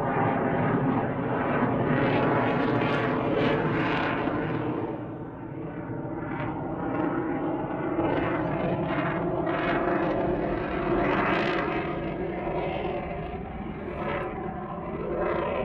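Jet aircraft flying over, really loud, a continuous rushing noise that swells and eases a few times.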